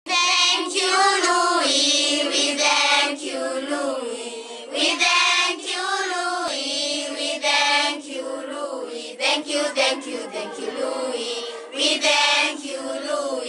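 A choir of young voices singing together in a chant-like thank-you song.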